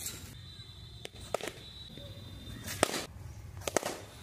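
Cricket ball being struck by a bat, three sharp knocks spread over a few seconds, the loudest a little past the middle.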